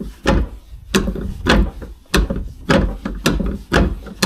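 A Trabant 601 wheel, screwed loosely onto the hub with two nuts, is jerked repeatedly like a slide hammer to pull the brake drum off. It gives a heavy knock about twice a second, eight or nine in all.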